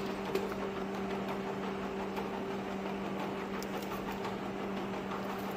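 Automatic tapered-cup labeling machine running: a steady mechanical hum from its conveyor drive, with one light click about half a second in.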